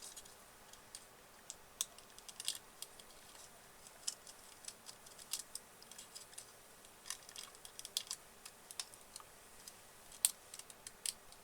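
Faint, irregular small clicks and taps of fingers or a tool working a tablet's LCD ribbon cable into its connector and handling the plastic parts around it.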